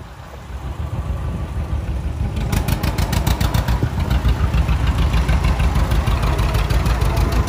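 Vintage John Deere two-cylinder tractor engine popping at an even, rhythmic beat as it pulls a loaded passenger wagon past. The sound grows louder as the tractor approaches, then holds close and loud from about two and a half seconds in.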